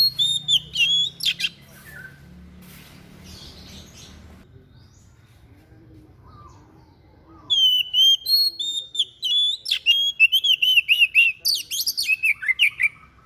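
Songbird known in Indonesian bird keeping as 'dada putih' (white-breast), singing in fast chirped phrases. A short bout in the first second or so, a pause, then a longer, denser run of rapid chirps from about seven seconds in, stepping down in pitch near the end, where a steady lower tone begins.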